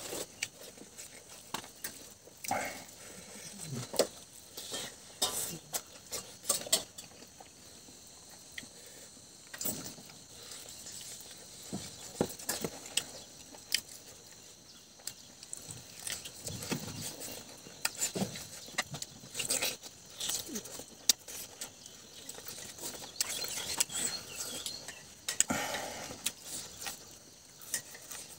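Close-up chewing and lip-smacking as a man eats rice and meat curry by hand, with many short wet clicks coming irregularly throughout.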